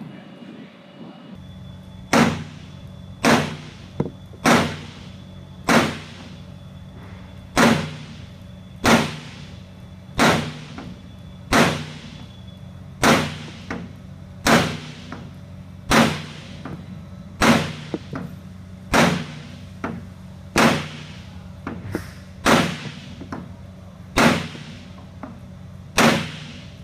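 Hammer blows on a wooden block set on an aluminum hydraulic shore cylinder barrel, about eighteen evenly paced strikes roughly one every second and a half, starting about two seconds in. The blows are driving the aluminum wiper guide down into the barrel until it sits flush with the top.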